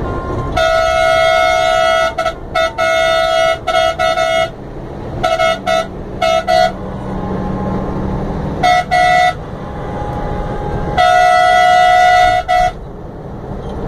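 Bus horn sounding in repeated blasts: a long stuttering blast, a run of short toots, a quick double toot, then a long steady blast near the end. The bus engine and road noise run underneath.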